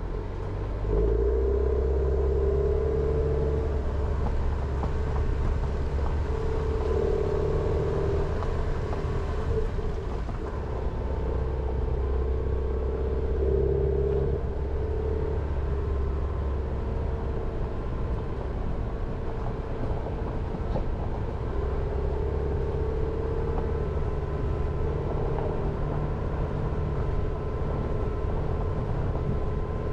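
Jeep Renegade driving, its engine and tyres making a steady running hum with road noise, which gets louder about a second in and then holds level.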